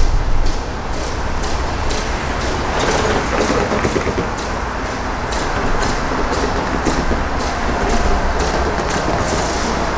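BNSF freight train rolling along the tracks: a steady rumble with faint, regular clicking about twice a second.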